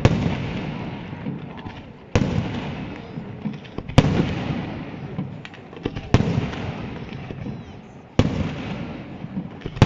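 Aerial firework shells bursting about every two seconds, each sharp bang followed by a long rolling echo that fades before the next.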